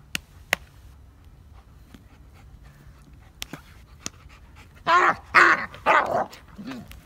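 Dogo Argentino making play vocalizations while on its back being wrestled: a short run of growling barks and a whine-like yelp about five to six seconds in. A couple of sharp clicks come before it.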